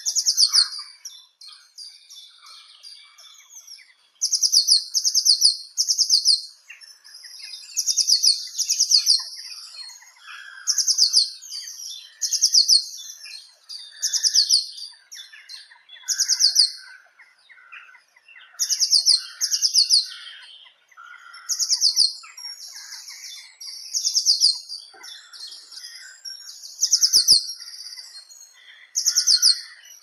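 A songbird singing: short, high, rapid trilled phrases repeated every second or two, with a couple of brief pauses, and fainter chirps between the phrases.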